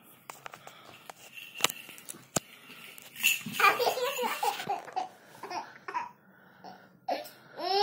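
A toddler babbling and laughing in short, high-pitched bouts, starting about three seconds in and again near the end. A few light clicks come before it.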